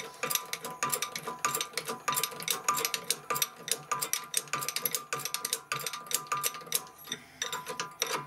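Shop press forcing a rubber-metal silent block bushing into a front control arm, with rapid, irregular clicking and ticking throughout. Music plays in the background.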